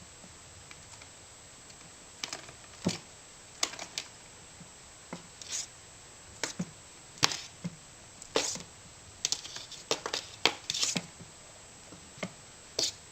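A black kitten pounces on and bats at a fluffy feather toy, making irregular taps, thumps and short scratchy rustles that begin about two seconds in and come thickest toward the end.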